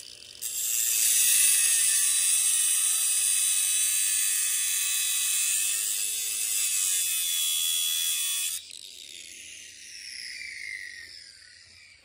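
Angle grinder with a cut-off wheel cutting into metal, a loud steady high-pitched grinding screech for about eight seconds. Then the wheel comes off the work and the grinder winds down with a falling whine.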